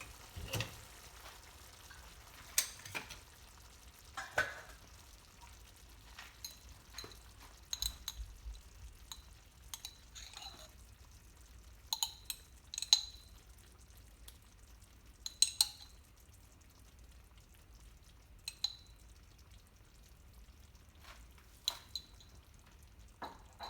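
Curry being stirred in a cooking pan with a metal utensil: irregular clinks and scrapes against the pan, some with a short metallic ring, over a faint sizzle.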